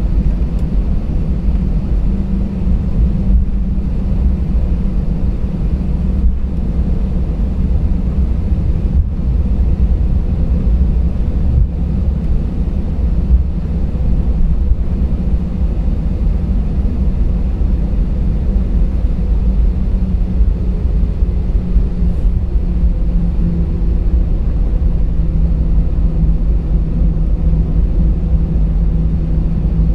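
Steady low drone of a jet airliner's engines heard from inside the passenger cabin, with a low hum that shifts slightly in pitch about two-thirds of the way through.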